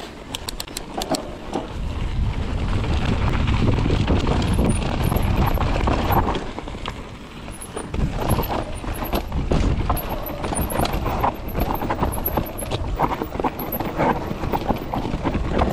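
Mondraker Foxy enduro mountain bike descending rocky singletrack. Its tyres crunch over dirt and pine needles while the bike rattles and knocks over rocks and roots, with wind rumbling on the camera microphone.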